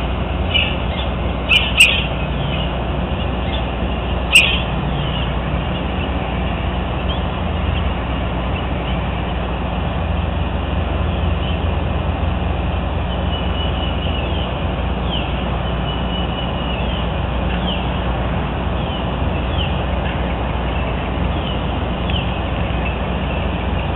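Small birds chirping, many short falling chirps, over a steady low rumble and hiss from the nest-camera microphone. A few sharp clicks come in the first few seconds.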